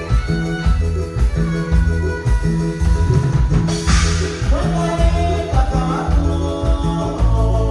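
Live band playing Mexican regional dance music: a steady bass and drum beat under electronic keyboard chords, with a crash about four seconds in followed by a rising glide.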